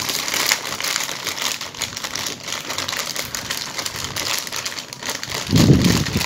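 Clear plastic packaging bag crinkling as it is handled and pulled around a figure's parts. A brief low hum near the end.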